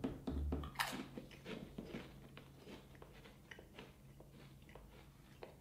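A person biting into a Pringles potato crisp with one sharp crunch about a second in, then chewing it with a run of smaller crunches that grow fainter and sparser.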